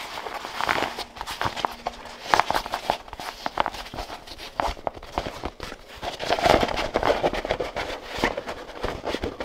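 Stiff, water-resistant cordura-type fabric rustling and crinkling in the hands as a drawstring pouch is turned right side out, with irregular scuffs and crackles.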